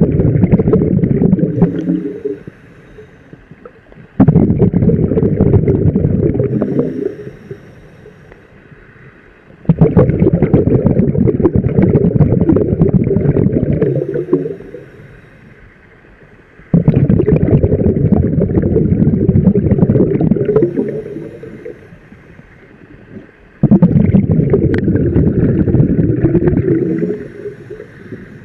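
A scuba diver's exhaled bubbles rumbling out of the regulator underwater, one breath about every seven seconds. Each exhalation starts suddenly and trails off over a few seconds, with quieter pauses between breaths.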